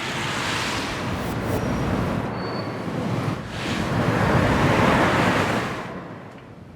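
A rushing, surf-like noise swells and ebbs, easing off briefly in the middle, rising to its loudest just after the middle and fading toward the end, with a couple of faint short high tones early on: a produced timelapse sound effect.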